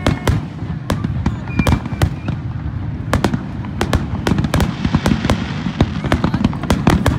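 Fireworks display: aerial shells bursting one after another in a quick, irregular string of bangs and crackles. The bursts come thicker and faster near the end.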